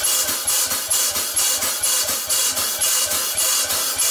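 Small stationary steam engine running on compressed air with its cylinder drain valves open: a rapid, even chuffing of exhaust beats, about four a second, over a loud hiss of air. It is blowing the condensed water out of the cast-iron cylinder and drawing steam oil in to keep it from rusting.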